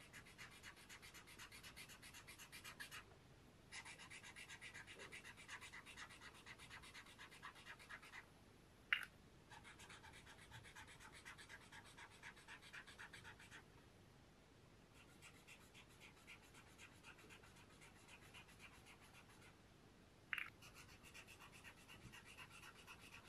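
Pentel Brush Sign Pen Twin marker's brush tip scribbling colour swatches on paper: faint, rapid scratchy strokes in several runs with short pauses between them. A short sharp click comes about nine seconds in and another about twenty seconds in.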